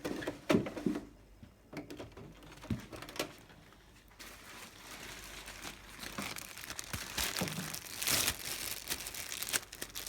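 Handling noise from swapping the handpiece on a diode laser hair removal machine: a few knocks and clicks in the first three seconds, then rustling that grows louder near the end.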